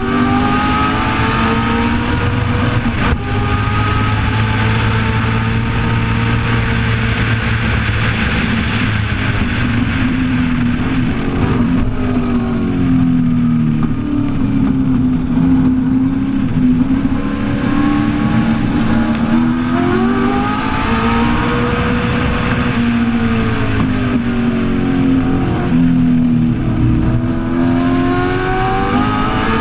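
1965 Shelby Cobra's V8 at racing speed, heard from on board the open car. The engine holds high revs for the first ten seconds or so, the revs drop sharply about twelve seconds in as the car brakes and downshifts, then climb and fall again several times through the corners that follow.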